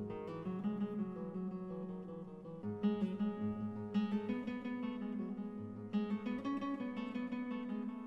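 Background music: an acoustic guitar strumming chords, with sharp strums about three, four and six seconds in.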